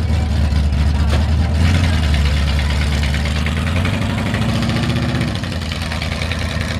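Ford Bronco tough truck's engine idling steadily with a strong low hum, the truck then moving off slowly.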